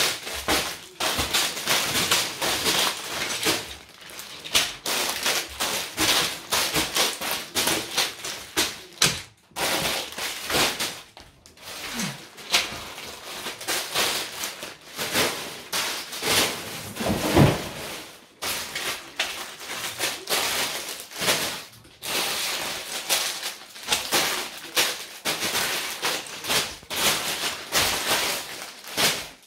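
Clear plastic bags of LEGO pieces crinkling and rustling as they are handled and set down on a wooden table, with small clicks from the parts inside. One louder bump about halfway through.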